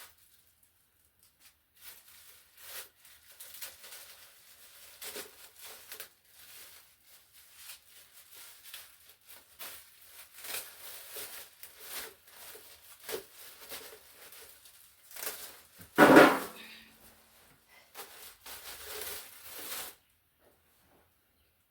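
Irregular rustling and crinkling with scattered small knocks, as of things being handled and packaging being crumpled, with one loud knock about sixteen seconds in.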